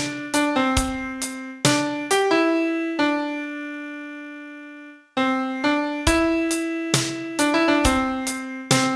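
Solo piano playing a slow melody one note at a time, each note struck and decaying; a long note is held for about two seconds and dies away before the melody resumes.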